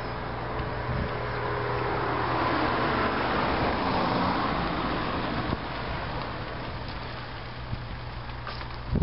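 A road vehicle passing on a nearby road: a tyre and engine rush that swells to a peak about four seconds in, then fades away.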